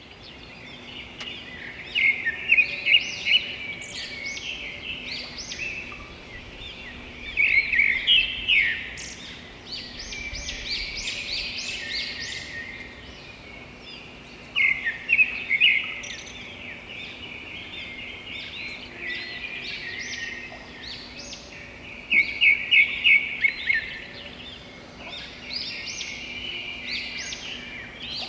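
Songbirds chirping and singing in a continuous chorus, with loud bursts of rapid repeated notes every several seconds.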